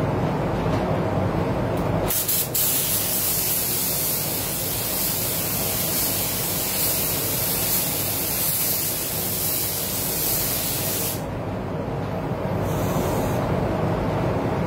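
Iwata Supernova LS400 spray gun hissing steadily as it sprays paint at about 1.8 bar, fully open. The hiss starts about two seconds in and cuts off about eleven seconds in, followed by a short second burst. A steady low rumble from the spray booth's ventilation runs underneath.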